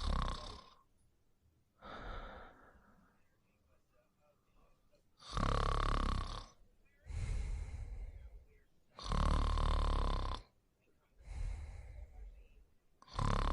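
A sleeping person snoring: a loud snore with a low rumble about every four seconds, each followed by a quieter breath.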